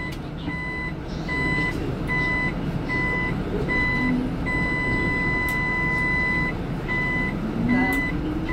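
A city bus's warning buzzer beeping steadily, a little over once a second, while the bus turns, with one held tone about two seconds long midway. Near the end a rising whine as the bus speeds up, over steady road rumble.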